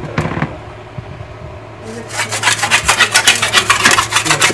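A flat metal scraper rubbed hard back and forth over a granite countertop around the empty faucet mounting holes, scraping off old grime and residue. One short stroke comes near the start, then about two seconds in a fast run of strokes begins, several a second.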